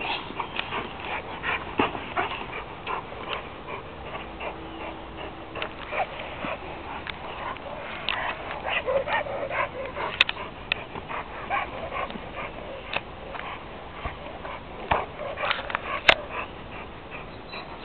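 A young German Shepherd vocalizing while gripping and tugging a padded bite sleeve, over many short scuffs and knocks from the struggle. Two sharp clicks stand out, about ten seconds in and near the end.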